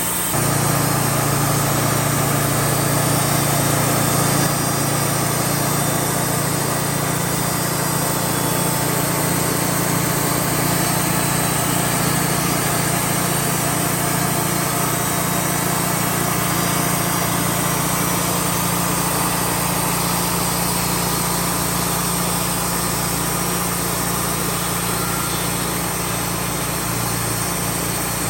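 Wood-Mizer LT40 portable band sawmill running steadily, its engine holding one even note. It gets a little louder about half a second in.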